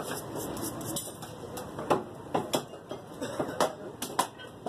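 A butcher's large knife or cleaver striking and cutting into a hanging mutton carcass, giving a series of sharp, irregular knocks and clicks, about six or seven in all.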